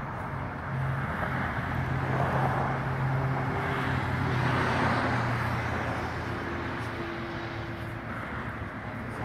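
A road vehicle passing: a rumble that swells to a peak about halfway through and then fades, over a steady low hum.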